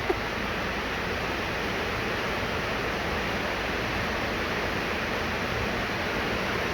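Heavy downpour: a steady, even hiss of pouring rain.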